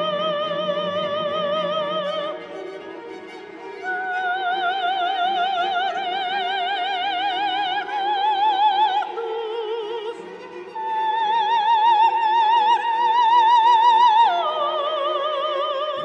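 Film score music: a high soprano voice sings long, wordless held notes with a wide vibrato, climbing slowly across several pitches and dropping near the end, over a soft low sustained accompaniment.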